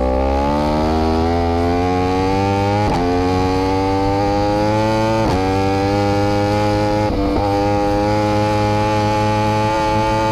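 Yamaha R1M's 998 cc crossplane inline-four engine running under load, its pitch climbing slowly, with brief breaks about three, five and seven seconds in.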